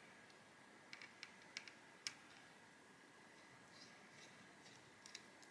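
Near silence broken by a few faint, light clicks, most in a cluster about a second in and one more near the end. They come from tiny phone screws and small tools being handled during the repair.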